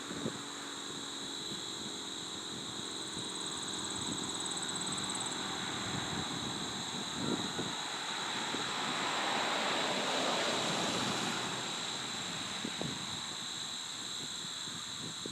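Noise of a passing vehicle that slowly swells and fades away, loudest about ten seconds in, over a steady high-pitched hum.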